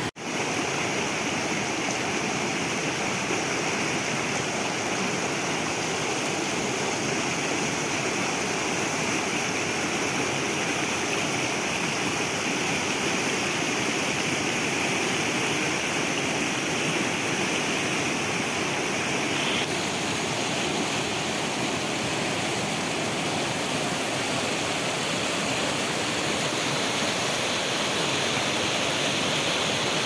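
Mountain stream rushing and splashing over rocks in small cascades: a steady, even rush of water that turns a little duller about two-thirds of the way through.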